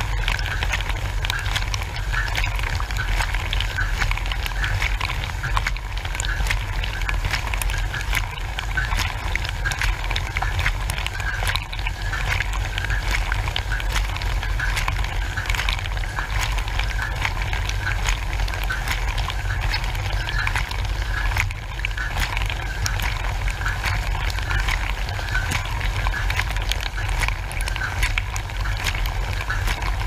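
Dishwasher running through its wash, heard from inside the tub: the wash pump's steady low hum under the hiss and spatter of water jets from the rotating spray arm, with droplets ticking against the walls and the camera. A pulsing whir repeats at a regular rate throughout.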